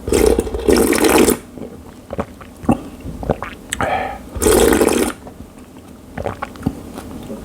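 Slurping jjamppong ramen soup in two long loud slurps, one at the start and one about four and a half seconds in, with small clicks and mouth sounds between.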